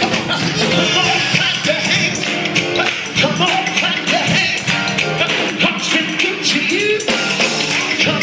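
Gospel choir singing live over a steady, driving beat.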